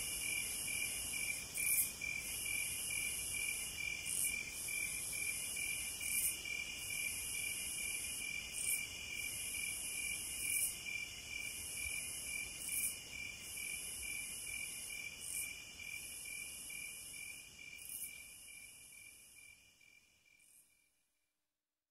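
Evening chorus of crickets and other insects: a continuous fast pulsing trill, with a higher buzz that swells about every two seconds, fading out near the end.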